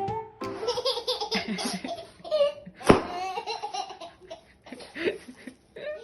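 A child laughing heartily, in fits that rise and fall, with a sharp knock about three seconds in.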